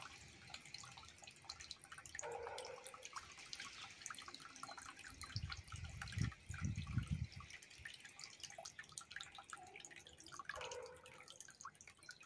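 Small garden fountain running: a thin stream of water from a cherub statue's jug trickling and dripping into a stone bowl, in many small splashes. A brief low rumble comes around the middle.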